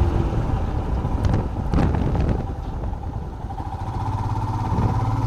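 Royal Enfield Himalayan motorcycle engine running on the road, with wind on the microphone. It goes quieter around the middle, then a steady engine note builds from about four seconds in.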